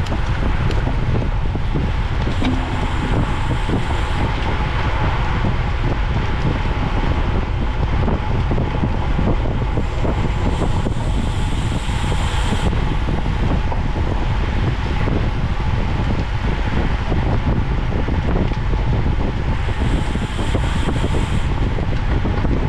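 Heavy wind rumble on the microphone of an onboard camera on a bicycle racing at speed. Three brief spells of higher hiss rise over it, a few seconds in, about halfway, and near the end.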